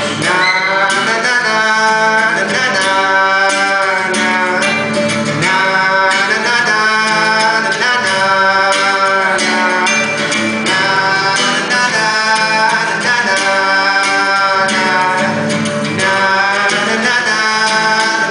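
Live acoustic guitar with a voice singing a simple repeated melody in held phrases of about two seconds each: the audience sing-along part of the song, being demonstrated.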